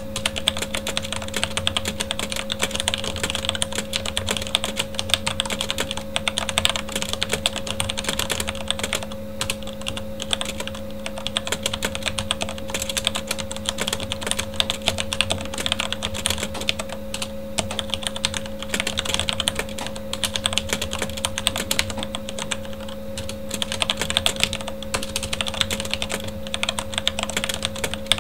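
Fast, continuous typing on a Corsair K70 mechanical keyboard with Cherry MX Red linear switches, a dense stream of key clicks and keycap clacks, over a steady hum from a computer fan.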